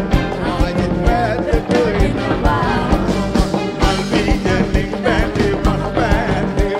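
Live band playing a Sinhala pop song: a woman singing into a microphone over keyboard, guitar and a steady drum beat.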